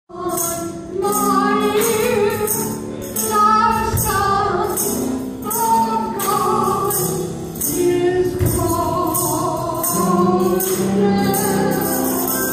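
A woman singing a gospel song, holding and sliding between notes, over a steady percussion beat of about two strokes a second.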